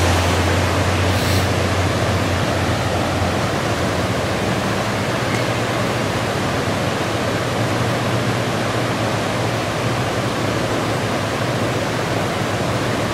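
Flash-flood water rushing along a street in a loud, steady rush. A low engine hum of a vehicle driving through fades out over the first three seconds.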